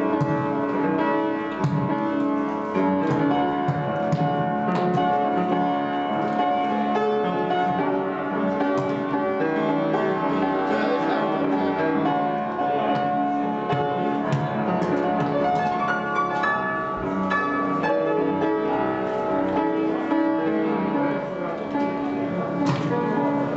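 Music of sustained, overlapping held tones, with a few short knocks scattered through it.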